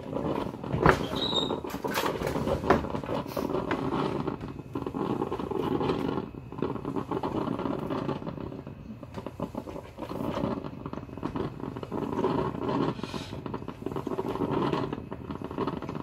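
A person chewing a mouthful of frosted banana cake: a soft, uneven mouth noise, with a few sharp clicks in the first three seconds.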